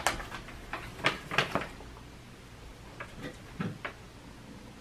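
Light clicks and taps of a plastic water filter and its clear plastic travel case being handled: several sharp ticks in the first second and a half, then a few more, one with a soft thud, about three seconds in.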